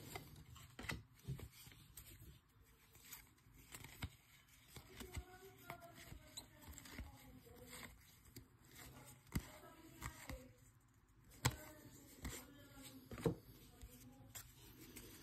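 Paper baseball cards being slid off a stack one by one in the hands: quiet scattered flicks and ticks of card stock, with a few sharper clicks.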